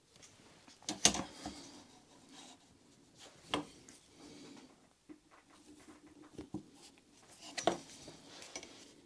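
Handling noise on a wooden workbench: a small electric fan motor and a steel ruler are set down and shifted on wood. There are three sharp knocks, about a second in, midway and near the end, with light scraping and rubbing between them.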